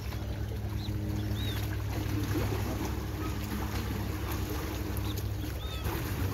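A steady low droning hum, like a motor running at a distance, over a haze of wind and water noise, with a few short high chirps.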